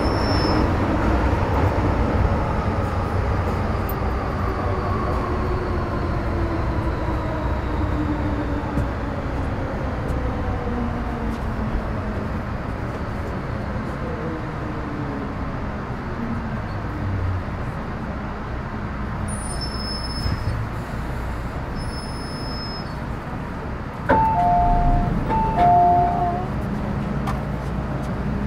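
Metro-Cammell M-Train electric multiple unit with GEC GTO chopper traction, its whining motor and chopper tones falling steadily in pitch as the train slows into a station. The tones then give way to a low steady rumble. About 24 seconds in, a two-note electronic chime sounds twice.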